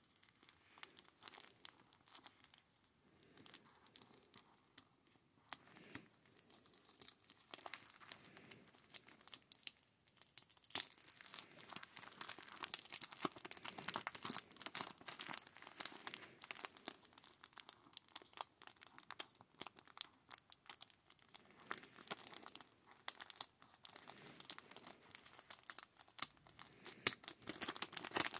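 Clear plastic card sleeves crinkling and tape being peeled off as trading cards are unwrapped by hand: a long run of sharp crackles. It grows busier about six seconds in, with the loudest crackles near the end.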